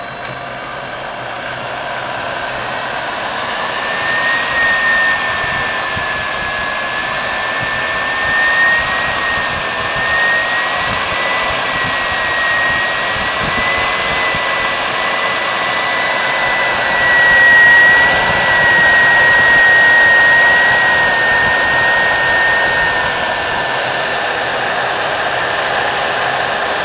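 SEW Eurodrive three-phase electric motor running on an Allen-Bradley PowerFlex 4 variable-frequency drive, with a steady whirring rush and a high whine that wavers slightly in pitch. It grows louder over the first few seconds as the motor comes up to speed, then runs steadily.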